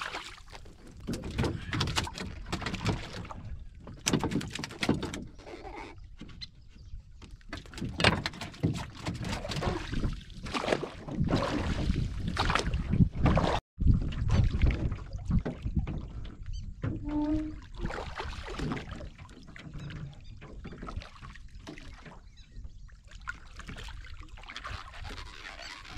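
Fishing net being hauled by hand over the side of a wooden boat: irregular splashing and sloshing water with knocks and rattles against the hull.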